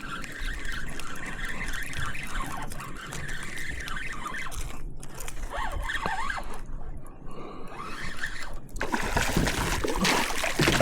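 Water trickling and lapping around a fishing kayak, turning into louder splashing or hiss about nine seconds in.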